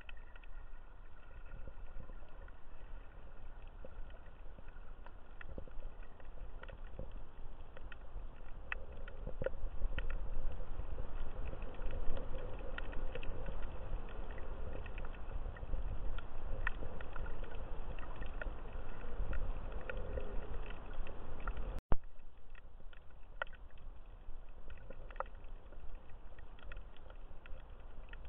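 Muffled underwater sound from a submerged camera: a steady low rumble of moving water, with faint scattered clicks and crackles. A single sharp pop about 22 seconds in.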